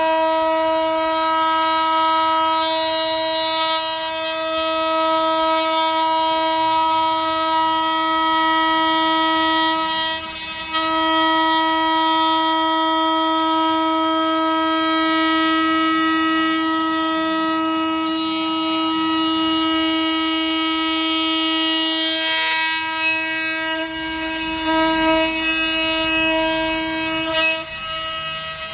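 Oscillating multitool running with a steady high buzz as its blade cuts a notch in maple stair nosing, easing off briefly about ten seconds in and again a couple of times near the end.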